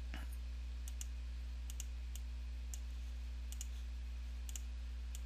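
Computer mouse clicking lightly, about ten clicks with some in quick pairs, over a steady low hum.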